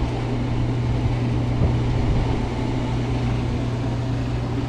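Car engine idling steadily, a constant low hum heard from inside the car.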